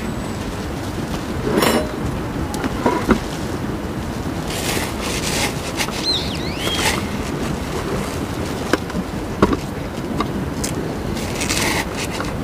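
Gravel and potting mix poured from a plastic scoop around a potted succulent, small stones rustling and clicking, over a steady wind rumble on the microphone. A bird chirps briefly about six to seven seconds in.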